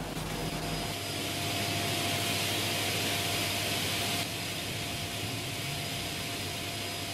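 Sliding table saw and its dust extractor running with a steady whir and a faint steady whine, not cutting. The sound drops a little about four seconds in.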